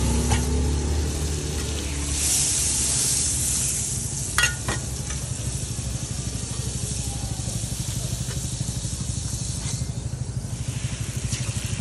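Butter and oil sizzling on a hot flat steel roti griddle, with a brief louder burst of sizzle about two seconds in and a single sharp click about four seconds in. A steady low hum runs underneath.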